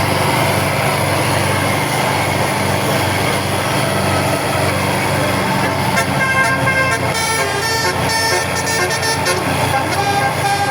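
A basuri telolet horn, a multi-tone melodic bus horn, plays a tune of shifting notes starting about six seconds in, over the steady drone of a running engine.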